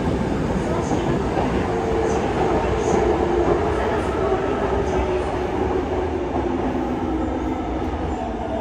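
Subway car cabin running noise from a Yokohama Blue Line 3000A train under way in a tunnel: a steady rumble of wheels and track with the faint tones of its Mitsubishi GTO-VVVF inverter drive running underneath.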